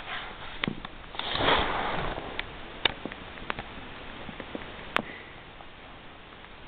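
Pet rabbit eating a piece of carrot: scattered sharp crunches and clicks, with a rustling noise for about a second shortly after the start.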